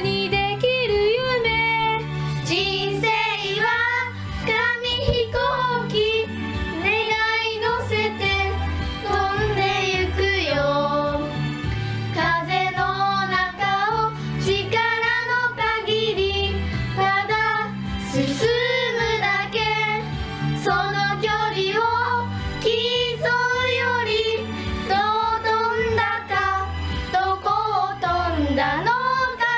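Young girls singing a Japanese pop song over an instrumental backing track.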